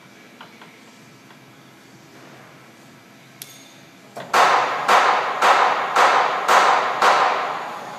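Loud metallic knocking from the Bridgeport Series II Special CNC mill's spindle head after the spindle is switched on, six blows about two a second, each ringing briefly, growing fainter toward the end. It comes while the head is being shifted into high gear.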